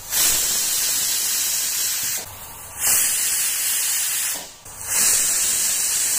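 Pressure cooker's weighted whistle valve venting steam: three loud hissing whistles, each about two seconds long with short breaks between. The whistles are counted as the measure of cooking time, and these are the second to fourth.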